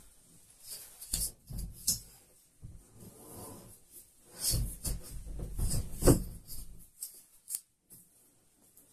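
Protective foam wrap on a flat-screen TV rubbing and rustling in irregular scrapes as the set is lifted and turned in its box, with a few sharp knocks, the loudest about six seconds in.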